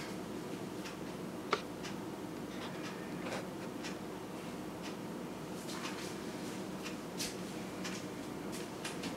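Faint ticking of a clock and scattered small clicks over the steady hiss of a camera recording a quiet room, with one sharper click about a second and a half in.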